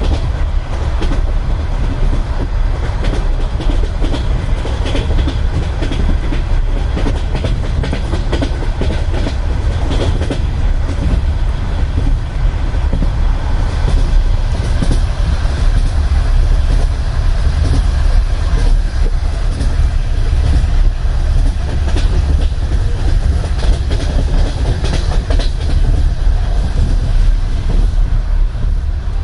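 Wheels of a Russian Railways passenger coach clattering over rail joints, heard from inside the compartment, over a steady low rumble of the running train.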